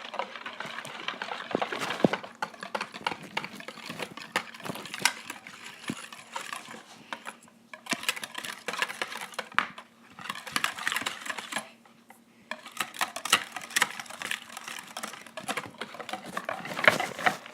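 Wire whisk clicking and scraping rapidly against a bowl while stirring glue and water for slime, in quick runs with brief pauses.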